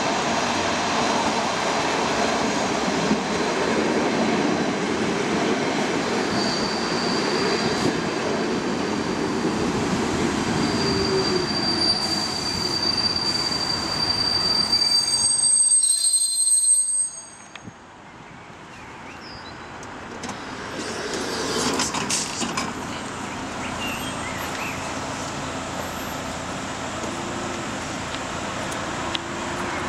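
Saltsjöbanan electric commuter train coming into a station, its wheels running loudly on the rails with a thin, high wheel squeal for several seconds. A little over halfway through the noise drops sharply, leaving the quieter hum of the standing train with a few clicks.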